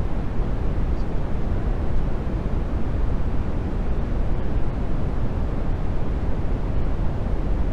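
Steady deep rushing noise, heaviest in the low end and even in level throughout: the masking noise bed of a subliminal audio track.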